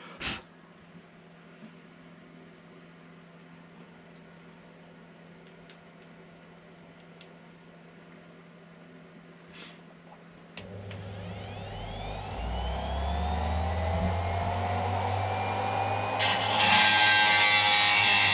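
Dremel rotary tool switched on about ten seconds in, its motor whine rising as it spins up; near the end the thin diamond cutting disc bites into the metal cab, adding a loud, steady grinding.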